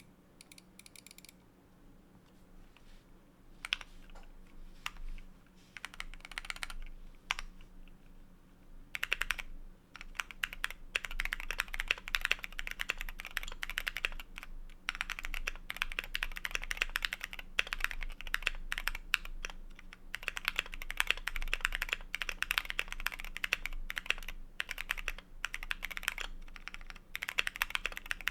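Keychron Q1 mechanical keyboard with an FR4 plate, lubed and filmed Cherry MX Black linear switches and Drop MT3 doubleshot ABS keycaps, being typed on. A few separate keystrokes come first, then steady fast typing from about nine seconds in.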